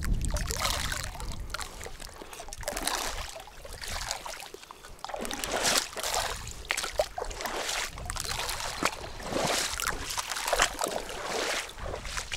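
Handfuls of corn groundbait tossed into a river, pattering and splashing onto the water about six times: the angler is baiting the swim.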